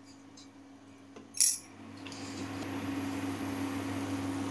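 A single sharp metallic clink about one and a half seconds in. Then a steady sizzle rises from the thickened coconut-milk and poppy-seed curry as it fries in the pan, with the oil starting to separate. Under it all runs a constant low hum from the induction cooktop.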